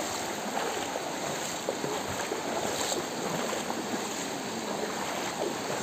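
Steady rushing of fast-flowing floodwater.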